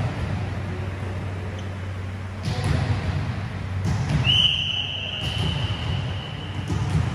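Volleyball gym ambience over a low hum, with a thud about two and a half seconds in, then one long, steady high-pitched whistle lasting over two seconds.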